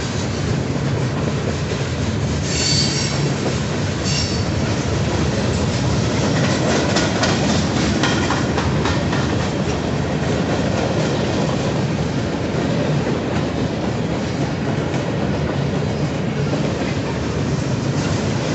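Freight train cars rolling past with a steady low rumble. Wheels squeal high and briefly twice a few seconds in, then click over rail joints for a few seconds in the middle.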